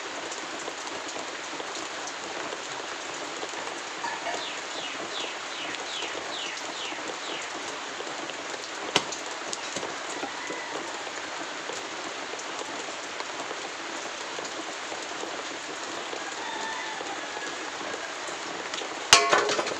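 Heavy chopping knife striking a wooden board in a quick run of loud chops near the end, cutting a leg off a dressed chicken, with a single sharp tick about halfway. Under it, a steady even hiss runs throughout.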